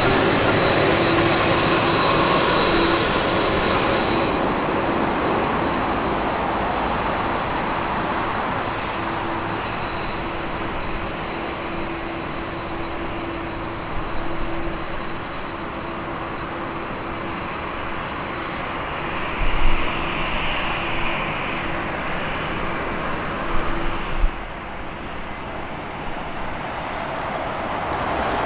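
Twin jet engines of a Boeing 767-300 freighter at taxi power: a steady rumble with a held whine, easing off as the aircraft taxis away. There are a few short thumps in the second half.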